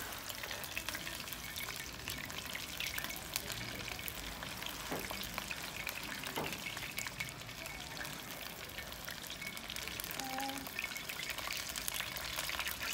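Marinated, flour-coated chicken drumsticks deep-frying in hot oil in a kadai: a steady, dense sizzle and crackle of bubbling oil.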